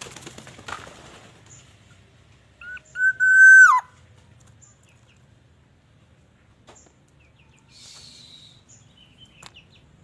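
Black-naped oriole calling once, about three seconds in: two short whistled notes, then a loud held whistle that drops in pitch as it ends. A brief rustling sound comes right at the start.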